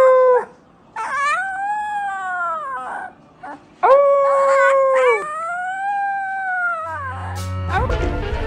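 Very young husky puppy howling: about four drawn-out howls, each one to two seconds long, most rising and then falling in pitch, with short breaks between them. Music comes in near the end.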